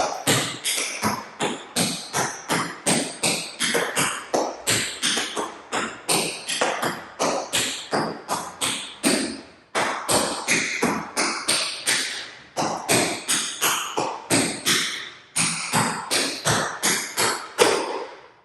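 Tap shoes striking the floor in fast rhythmic tap-dance footwork: riffs of toe, scuff, heel and dig sounds, with shuffles and step-heels, in quick runs of several taps a second. The taps break off briefly twice and stop at the end.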